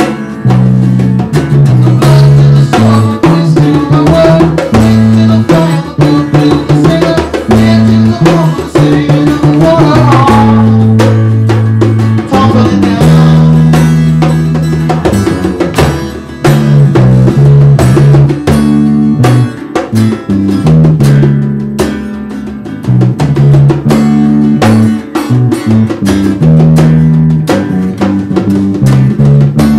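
Acoustic band playing: a strummed acoustic guitar, an electric bass holding long low notes that change every second or two, and a hand drum struck with bare palms keeping a steady beat.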